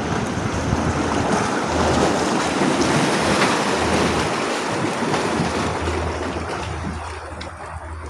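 Ocean surf: a wash of waves swells a couple of seconds in and then fades away toward the end.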